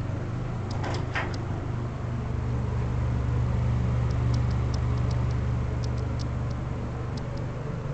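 Otis holeless hydraulic elevator rising one floor, heard from inside the cab: the 25 hp pump motor's steady low hum, a little louder midway. There are a couple of light knocks about a second in and faint ticks later.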